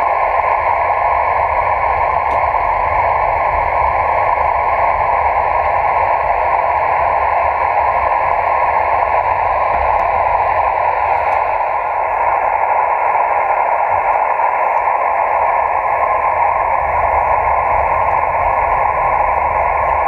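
Kenwood TH-D74 handheld receiver with its squelch held open, giving a steady hiss of band noise from its speaker. The hiss stays clean with no whine or buzz, a sign that the car running in electric mode causes no interference. About twelve seconds in, the hiss turns a little duller.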